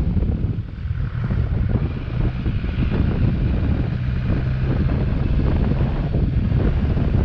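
Wind buffeting the helmet-mounted microphone of a moving motorcycle, with the bike's engine running steadily underneath. The rush eases briefly about a second in.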